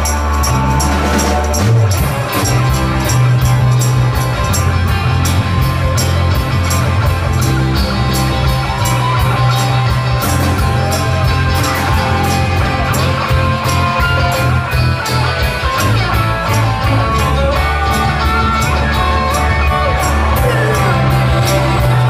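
Live rock band playing: electric guitars, bass and drums with an even cymbal beat, and singers singing.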